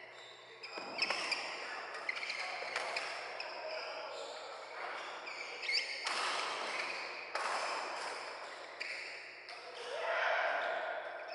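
Badminton doubles rally: racket strings hitting the shuttlecock in sharp, irregular clicks, with short high squeaks of shoes on the court mat.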